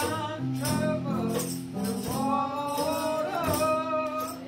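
Gospel singing: a woman sings through a microphone over a band accompaniment with held low notes, while a tambourine shakes in a steady rhythm.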